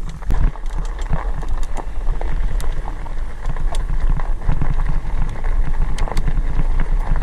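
Fat-tyre e-bike riding over a gravel and dirt trail: tyres crunching, with scattered sharp clicks and rattles from stones and the bike. Under it is a steady low rumble of wind on the handlebar-mounted camera's microphone.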